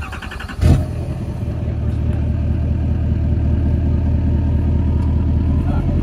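Truck engine starting: a brief burst of cranking, catching with a loud hit under a second in, then idling steadily.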